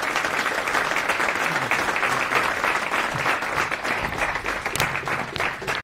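Audience applauding in a lecture hall, dense clapping throughout, cut off abruptly near the end.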